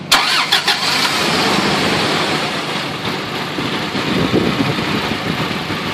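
An engine starting, with a few sharp clicks in the first second, then running steadily.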